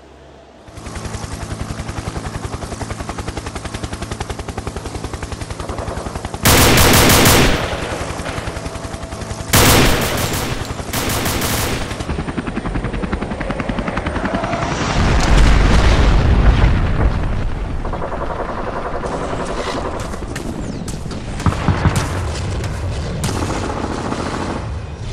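Sound-effect gunfire: rapid automatic fire that runs on steadily, with several louder bursts, a deep rumbling boom about fifteen seconds in, and scattered sharp shots near the end.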